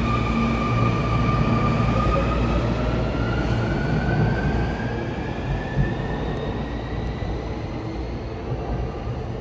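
A navy-blue Sotetsu electric train accelerating away from an underground platform. Its motor whine climbs steadily in pitch over the low rumble of the cars, then the sound fades as the last cars leave.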